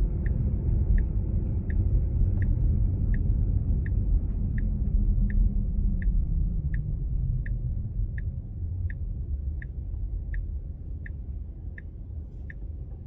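Tesla Model 3's turn signal ticking steadily inside the cabin, about 1.4 ticks a second, for a left turn. Low road rumble underneath fades from about eight seconds in.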